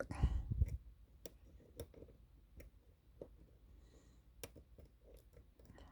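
Scattered sharp clicks of a lock pick working the spool pins of a 'Titan' pin-tumbler lock under tension, a handful of separate ticks about a second apart. This is picking to regain a deep false set, pins catching and the core counter-rotating.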